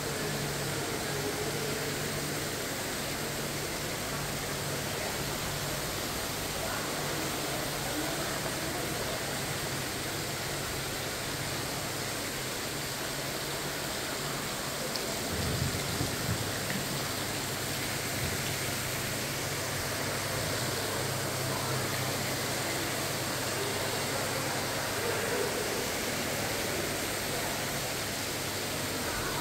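Steady hiss of water splashing from an indoor pond fountain, over a low steady hum.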